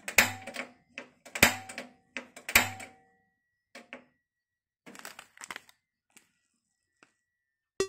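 Gas stove's piezo igniter knob clicking three times, about a second apart, without the burner lighting: the gas has run out. Softer rustling follows.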